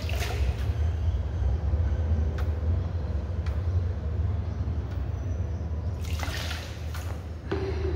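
Water poured from a plastic bottle, splashing over hands as they are rinsed: once at the start and again, louder, about six seconds in. A steady low hum runs underneath.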